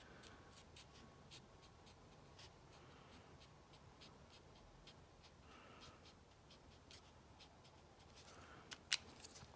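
Faint scratching of an alcohol marker's nib drawn over cardstock in short strokes, with two sharper clicks near the end.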